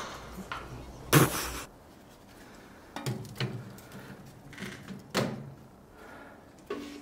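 Household things being handled and moved: a run of short knocks and scrapes, the loudest about a second in, with a few lighter ones spread through the rest.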